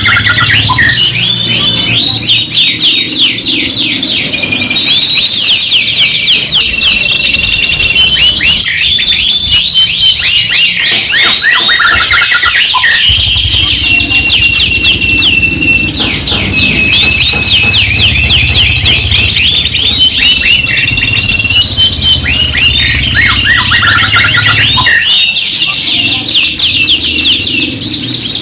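Several domestic canaries singing at once: fast rolling trills, rapid chirp runs and held whistled notes, overlapping without a break. A low hum runs underneath.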